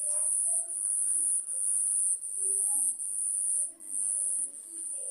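Cricket chirping close by: a high-pitched trill repeated in phrases of under a second with brief breaks between them, about seven times.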